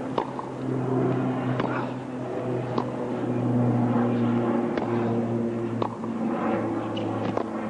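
Tennis ball being struck back and forth in a rally: sharp racket pops and bounces come about once a second. A steady low drone runs underneath.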